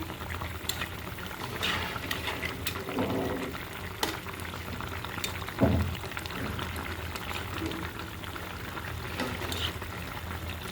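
Pangas fish and vegetable curry bubbling in its pan as it finishes simmering, with scattered clicks of a utensil against the pan and one louder knock a little past halfway.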